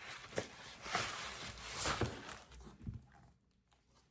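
Packaging being torn open and rustled as a box is unpacked, with a few clicks and handling knocks, settling down to quiet handling near the end.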